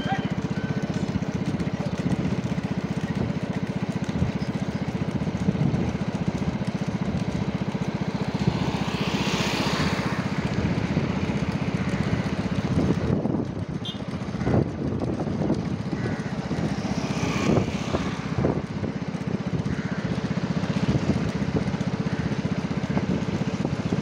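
Motorcycle engines running steadily at road speed, with a few short knocks in the second half.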